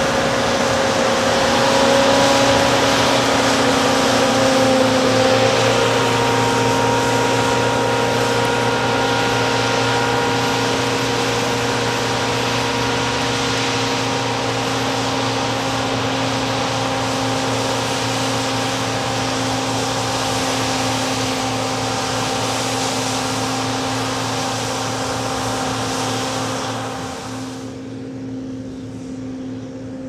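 John Deere C670i HillMaster combine harvester working in wheat, its engine and threshing machinery running as a steady droning hum. Near the end the sound turns quieter and duller as the combine moves off.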